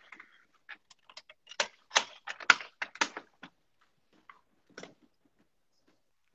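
A quick run of irregular clicks and taps, dense for a few seconds and then a few scattered ones.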